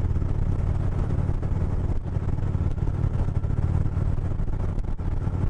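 2018 Indian Chieftain's V-twin engine running steadily under way, with no clear revving or gear change.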